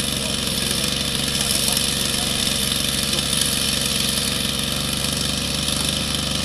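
Large radio-controlled scale model Bell 47G helicopter running at idle on the ground, its main rotor turning slowly; a steady engine drone with a constant hiss over it.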